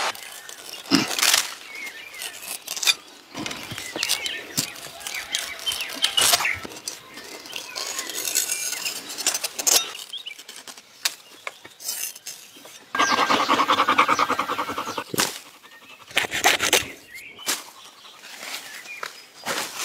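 Rustling, scraping and snapping of dry palm-fibre sheaths being cut and handled: a string of short sharp noises, with a longer, louder stretch of rustling about thirteen seconds in.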